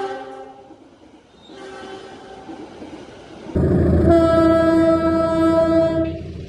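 Train air horns sounding the semboyan 35 signal, the long horn blast an Indonesian train gives to acknowledge it is ready to move off. A chord dies away at the start, a fainter blast follows about a second and a half in, then a loud blast with a heavy low rumble starts suddenly about three and a half seconds in and stops just before the end.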